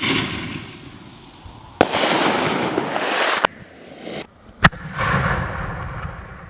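Consumer firework mortar shells going off: several sharp bangs, each followed by a second or so of hissing crackle that fades away.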